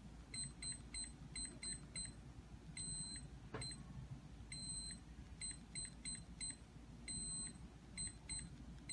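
ASTC PW3002 keypad door lock beeping at each key press as a new user code is programmed in. Runs of short high beeps, about three a second, are broken by a few longer beeps.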